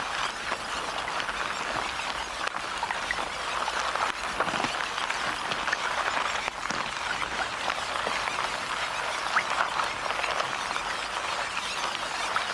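Dense, steady wet crackling and pattering made of many tiny clicks: the sound given to a mass of bloodworms wriggling on the pond bed.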